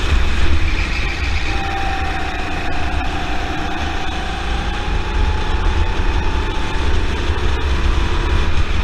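Rental go-kart's single-cylinder Honda four-stroke engine running under load, heard onboard. Its pitch drops about a second in, then climbs slowly as the kart picks up speed. A heavy low rumble of wind on the camera sits under it.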